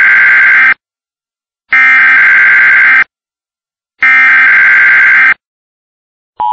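Emergency Alert System SAME header tones: three identical screeching digital data bursts, each just over a second long, separated by about a second of silence. Right at the end the steady two-tone EAS attention signal begins.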